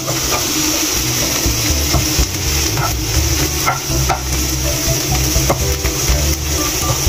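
Sliced bitter gourd and onion sizzling in a frying pan, stirred with a spatula that scrapes and taps against the pan over and over.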